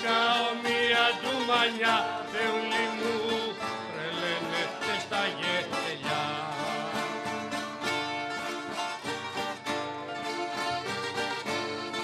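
Live rebetiko band playing an instrumental passage: a plucked-string melody over a steady strummed rhythm.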